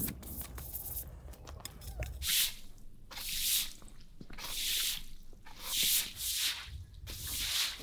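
Stiff-bristled deck brush scrubbing a wet concrete floor slab, its bristles swishing through water in strokes about one a second from about two seconds in.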